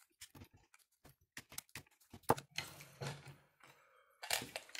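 Clicks, light knocks and scraping of the plastic and metal parts of a small 3D printer's extruder and hotend assembly being handled, with rustling from gloved hands. A string of sharp clicks comes first, then denser scraping and rustling from about two seconds in, and a louder rustle near the end.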